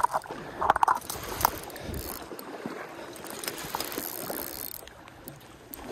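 Spinning reel clicking and whirring steadily under the pull of a hooked king (Chinook) salmon.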